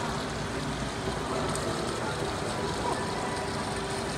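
Indistinct chatter of aquarium visitors over a steady background hiss and hum.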